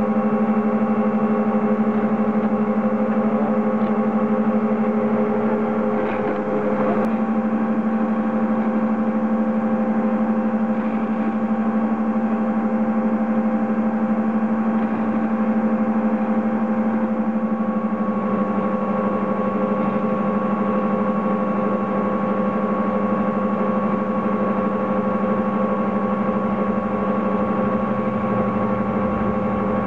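A drag ski lift's bottom-station bullwheel and cable machinery running, giving a loud, steady hum of several droning tones. A higher tone comes in more strongly a little over halfway through.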